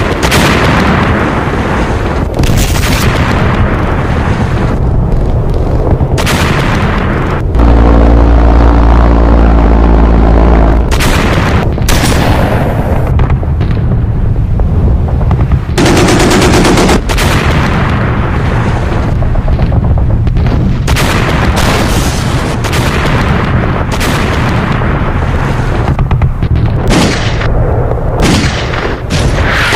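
Battle gunfire: rapid, irregular rifle and machine-gun shots mixed with artillery booms. About eight seconds in, a heavy low rumble takes over for some three seconds.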